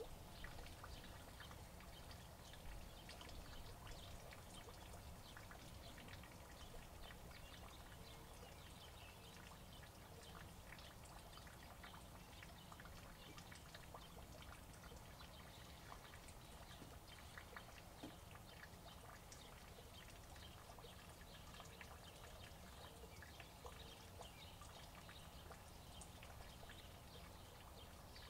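Faint steady rain falling, with many small scattered drips.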